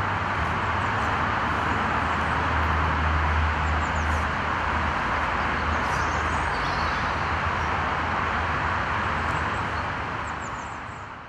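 Steady road traffic noise from a nearby road, with a deeper vehicle rumble swelling about two to four seconds in, and a few faint bird chirps over it. The sound fades away near the end.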